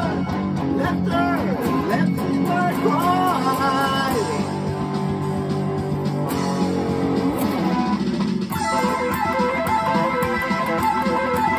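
Les Paul-style electric guitar playing, with bent notes over sustained low notes at first, then from about eight and a half seconds in a run of rapid high picked notes.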